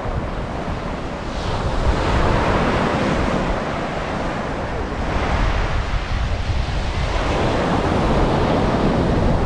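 Ocean surf breaking and washing up the beach, swelling louder a couple of times, with strong wind rumbling on the microphone.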